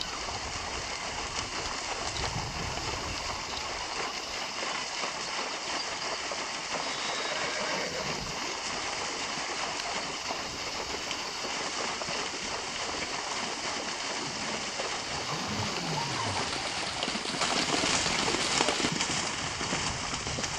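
Horses wading and trotting through shallow water, their hooves splashing steadily, the splashing growing louder near the end.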